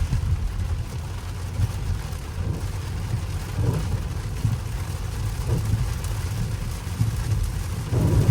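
Low, steady rumble heard inside a Mercedes-Benz S580's cabin while driving in heavy rain: road and tyre noise on wet pavement, with the engine running underneath.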